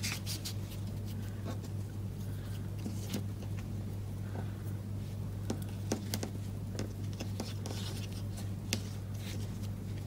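Small scattered ticks and scrapes of twine being pulled and knotted against a paper card, over a steady low hum.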